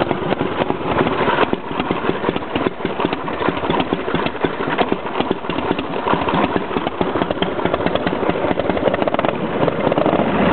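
Freshly rebuilt motorcycle engine idling steadily in rapid, even firing pulses, still a little cold after its first start.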